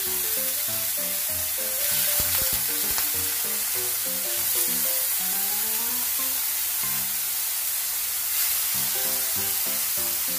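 Beef-wrapped angelica-tree shoot rolls sizzling steadily as they fry in a lightly oiled frying pan, with a light music melody underneath.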